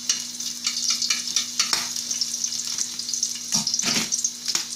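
Chopped garlic sizzling and crackling in hot oil in a wok as it starts to sauté, with a few louder scrapes of the spatula stirring it, about two seconds in and again near the end.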